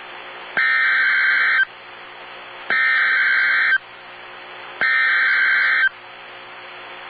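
Emergency Alert System SAME header: three bursts of buzzing digital data tones, each about a second long and about a second apart, over a constant radio hiss. These are the coded header that opens an emergency alert, here a Child Abduction Emergency (AMBER Alert).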